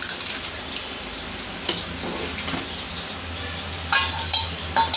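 Thick mashed cooked dal sliding and slopping from a steel vessel into a pot of sambar rice, with metal scraping against the steel vessel about four seconds in and again near the end.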